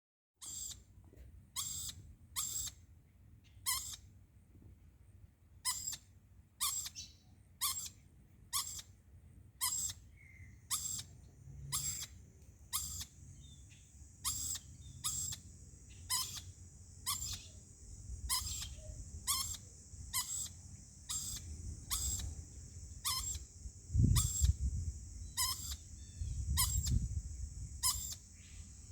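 Lorikeet giving the same short, sharp call over and over, about once a second, an odd repeated noise its owner cannot explain. A steady high hiss joins about ten seconds in, and low rumbles come near the end.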